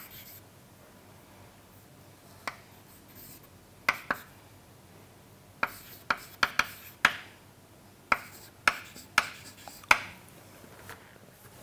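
Chalk writing on a chalkboard: about a dozen sharp taps and short scratches, irregularly spaced, as figures are written.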